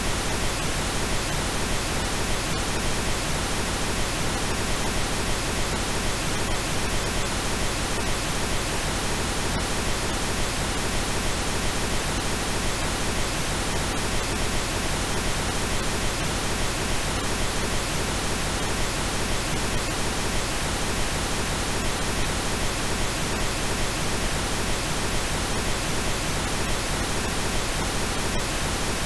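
Steady synthesized pink noise: an even, unbroken hiss across all pitches that does not change.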